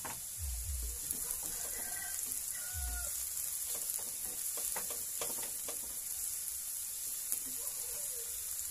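Diced onions sizzling in butter and a little olive oil in a nonstick frying pan as they sauté toward translucent, stirred with a silicone spatula that scrapes and knocks against the pan now and then.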